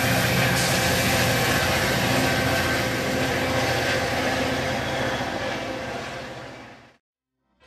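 Coaster commuter train's diesel locomotive running with a steady low engine drone and wheel-on-rail rumble as the train pulls away, fading out over the last two seconds.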